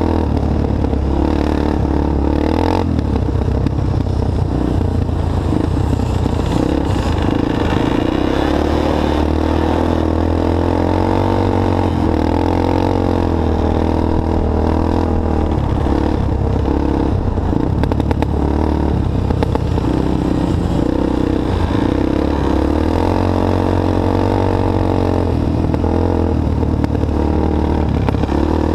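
Engine of an all-terrain vehicle running continuously under way close to the microphone, its pitch rising and falling a little with the throttle, over a steady rush of wind and road noise.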